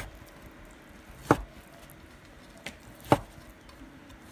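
Chinese cleaver slicing boiled cured pork on a wooden chopping board: three sharp chops of the blade knocking through to the board, spaced a second and a half to two seconds apart.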